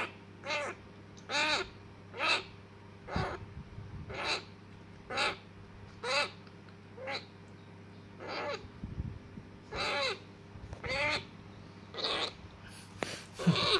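African grey parrot chick, about 30 days old, giving short begging calls about once a second while being fed formula from a syringe, each call rising and then falling in pitch.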